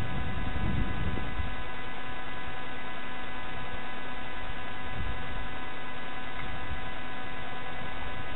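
Steady electrical hum made of several fixed tones, over a low rumbling noise.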